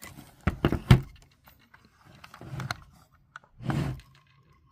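Handling noise from a small metal-studded wooden box: three sharp knocks in the first second, the loudest about a second in, as it is lifted out and set down on a table, then softer rustling and scraping twice.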